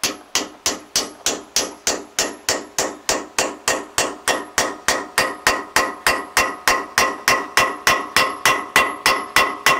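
Steel hammer striking rapidly and evenly, about four blows a second, on the hub of a baler roller's steel drive sprocket, each blow ringing metallically, the ring growing stronger about halfway through. This is driving the sprocket and its key off the roller shaft to replace the roller's bearing.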